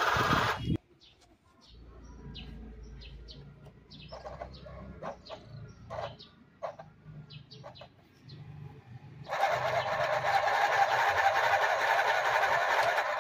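Small electric mini sewing machine running in a short burst that stops under a second in, then running steadily again for the last four seconds. In between, with the machine stopped, birds chirp in short scattered notes over a low hum.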